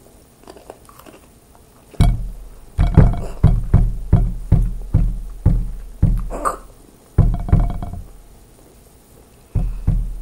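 A run of heavy thumps on the table close to the microphone, about two a second, starting about two seconds in and stopping about eight seconds in, with one more near the end.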